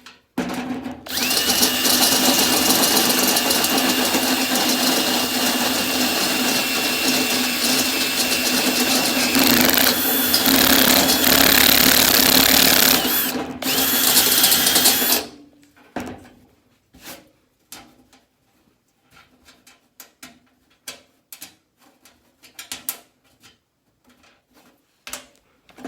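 Electric drill with a step drill bit cutting through 16-gauge sheet steel, a steady high whine with grinding cutting noise. It stops briefly about 13 seconds in, runs again, then stops about 15 seconds in, leaving only scattered light clicks and taps.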